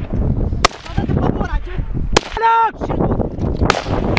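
Gunshots in a firefight: three sharp single shots about a second and a half apart, over a steady rumble of wind and movement on the microphone.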